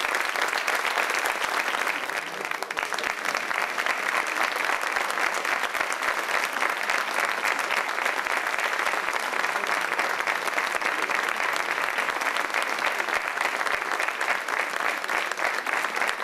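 Audience applauding: steady, dense clapping of many hands throughout, easing slightly about two seconds in before picking up again.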